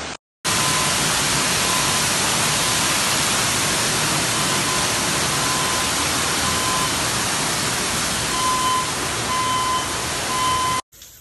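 Water gushing from a burst pipe: a loud, steady rush that cuts in just after the start and stops suddenly near the end, with a faint high beeping tone coming and going over it.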